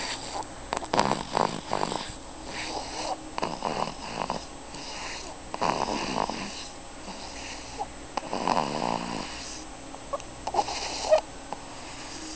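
A baby snoring in sleep: about four rasping snores, roughly two and a half seconds apart. A few short clicks follow near the end.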